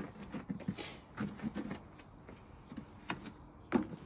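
Light knocks, clicks and rubbing as the right-hand section of a frunk tray is picked up and handled into the car's front compartment, with a couple of sharper clicks in the last second.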